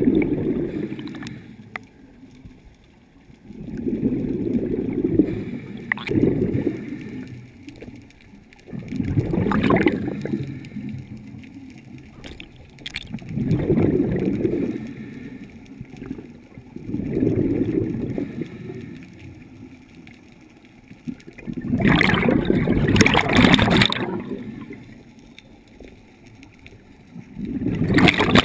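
Scuba breathing through a regulator heard underwater: bubbling gurgles of exhaled air swell and fade about every four seconds. One longer, louder burst of bubbles comes about three-quarters of the way in.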